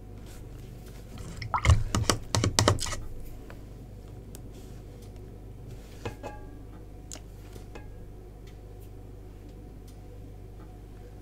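A quick run of sharp clicks and taps about two seconds in, then a few faint ticks, from a paintbrush and painting things being handled on a table, over a steady low hum.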